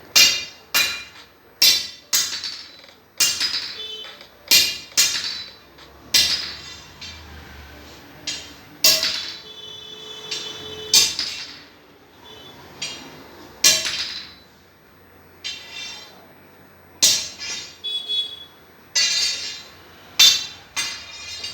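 Hammer striking steel in irregular blows, roughly one a second, each strike ringing on with a bright metallic tone.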